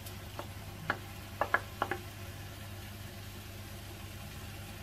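Wooden spoon scraping shrimp off a plate into a frying pan, with a few light taps and knocks in the first two seconds. A steady low hum runs underneath.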